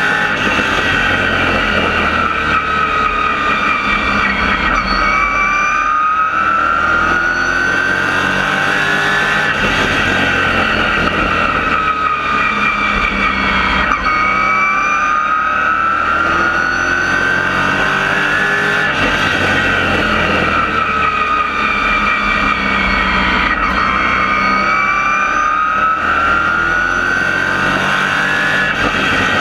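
Race car engine heard from inside the cockpit at race pace, its pitch climbing as it accelerates down each straight and falling away as the driver lifts for the turns, about every nine seconds, lap after lap.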